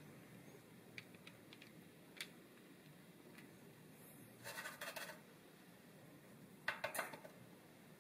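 Faint handling sounds from hands working a plastic paw-print cookie cutter on parchment-lined dough: a few light clicks, then two short scratchy rustles of the parchment paper, the second one louder near the end.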